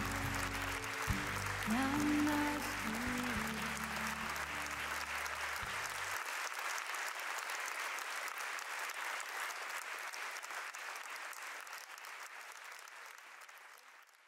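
Concert audience applauding with dense, steady clapping. Sustained low music plays underneath and cuts off about six seconds in, after which the applause goes on alone and fades out near the end.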